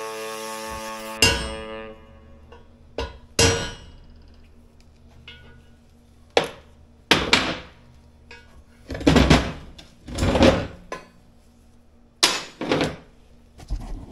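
A handheld angle grinder whines steadily, then is switched off a little over a second in and winds down. It is followed by an irregular string of sharp metal clanks and knocks as steel parts are handled and set down on a steel workbench.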